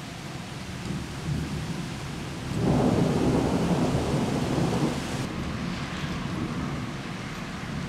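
Thunder rumbling over steady rain: a low roll swells suddenly about two and a half seconds in, stays loudest for a couple of seconds, then fades back into the rain.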